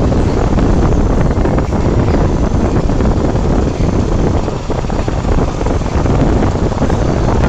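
Steady, loud wind buffeting the microphone, a rumbling noise with no distinct calls or knocks.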